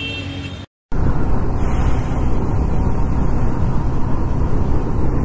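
Hero Xtreme 160R motorcycle on the move: steady wind and road rush on the rider's microphone with the single-cylinder engine running underneath, cutting in abruptly just under a second in after a brief dropout.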